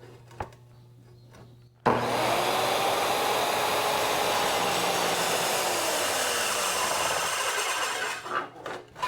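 A circular saw starts about two seconds in and rips through metal plate for about six seconds. Its whine rises quickly, then slowly sinks before the saw stops. A few short knocks follow near the end.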